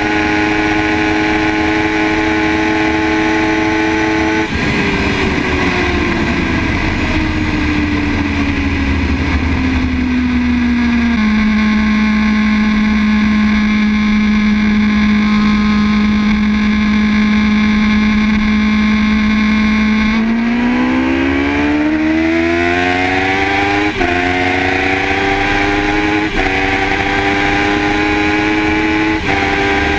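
Superbike engine heard from an onboard camera over heavy wind noise. The engine note falls gradually as the bike eases off, holds steady for several seconds, then climbs again under hard acceleration from about two-thirds in, with three quick upshifts near the end.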